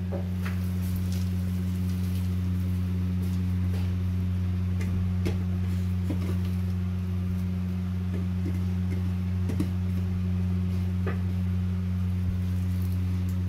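A steady low hum throughout, with a few faint clicks and rustles from sliced onions being handled in a cooking pot.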